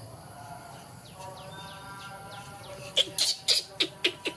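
Baby monkey calling: faint chirps and a thin whine at first, then, about three seconds in, a quick run of about eight loud, shrill squeaks.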